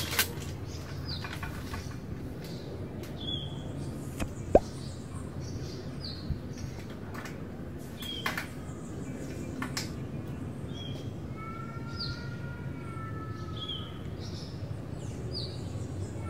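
Small birds chirping, short falling chirps repeating every second or two, with a second bird calling in longer steady notes in the last few seconds, over a low steady hum. A few light clicks and knocks, the sharpest about four and a half seconds in.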